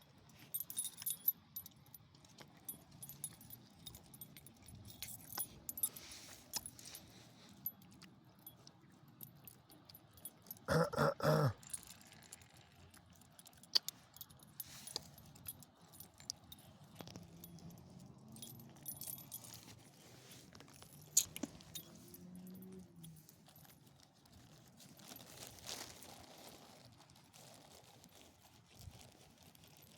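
Metal collar tags and clips jingling and clinking on and off. About eleven seconds in, the sixteen-year-old dog gives a short burst of three or four harsh coughs.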